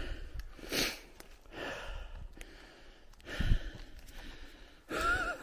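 A man breathing hard and walking through dry grass and brush, twigs rustling underfoot, with a short voiced exclamation near the end.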